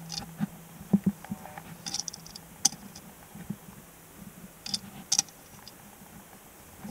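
Scattered light clicks and taps of a diecast model stock car being handled and turned on a wooden tabletop, a few of them sharper than the rest.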